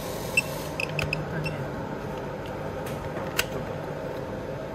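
A few small sharp clicks and taps over a steady low electrical hum, the loudest click about three and a half seconds in.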